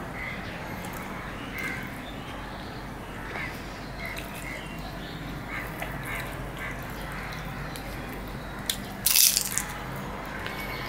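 Close-miked eating sounds: a man chewing luchi and tearing the puffed fried bread by hand, with small mouth and hand noises over a steady low hum, and a short, loud crackle about nine seconds in.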